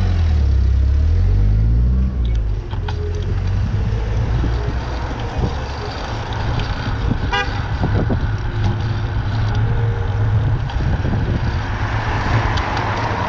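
Road traffic heard from a bicycle: a vehicle engine running close by, revving up with rising pitch over the first two seconds, then a steady low rumble of traffic and wind on the microphone. A brief horn toot sounds about seven seconds in.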